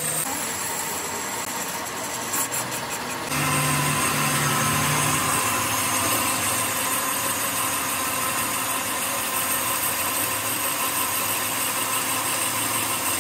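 Metal lathe running steadily as its tool bit turns a steel coupling flange, a continuous machine hum with steady whining tones. The sound steps up abruptly and gets louder a little over three seconds in.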